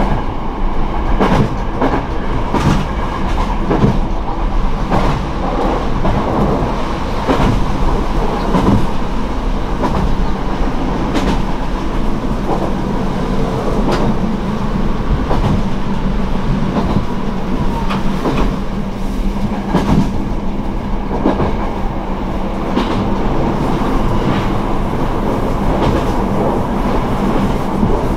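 Kyoto Tango Railway diesel railcar under way, heard from inside the cabin: the underfloor diesel engine drones steadily while the wheels clack over rail joints again and again.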